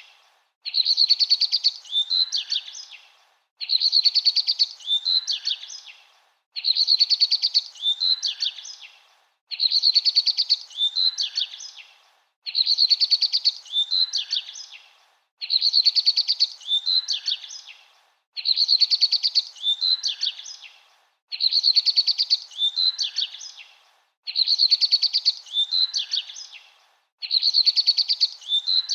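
A songbird's song phrase of rapid, high chirping notes, each phrase about two and a half seconds long and fading at its end, repeated in the same form about every three seconds like a looped recording.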